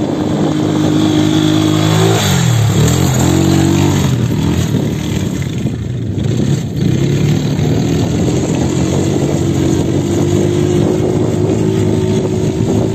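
Quad bike (ATV) engine running as it is ridden over sand. The revs drop and pick up again about two seconds in, then hold with a slowly rising pitch.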